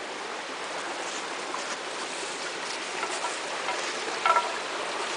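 Small headwater brook running over rock, a steady rush of flowing water. A brief pitched sound rises above it about four seconds in.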